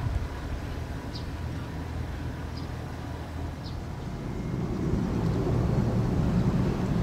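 Small sightseeing boat's outboard motor running with a steady low rumble, growing louder about four and a half seconds in.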